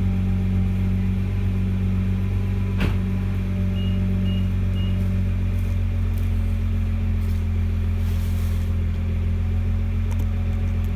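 2012 Nissan GT-R's 3.8-litre twin-turbo V6 on its stock exhaust, idling steadily. A single click comes about three seconds in, followed by three short high beeps.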